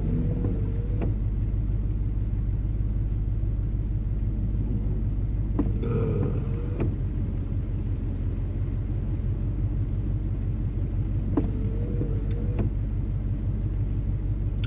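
Off-road 4x4's engine running steadily with a low rumble. Three brief wavering squeals with clicks come near the start, about halfway and near the end.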